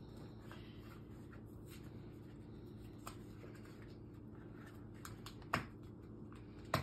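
Faint handling sounds of hands working at a small, stubborn cardboard box, with light scraping and a few small clicks. The two sharpest clicks come about five and a half seconds in and at the very end.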